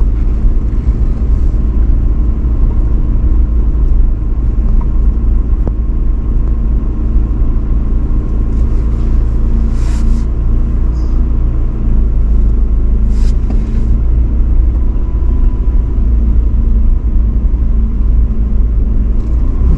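A car driving along a dirt track, heard from inside the cabin: a steady low rumble of engine and tyres. Two brief sharper noises come through about ten and thirteen seconds in.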